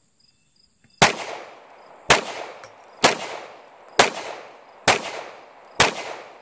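Six shots from a CZ Shadow 2 9mm pistol, fired single action at about one a second, each followed by a short echo that fades before the next.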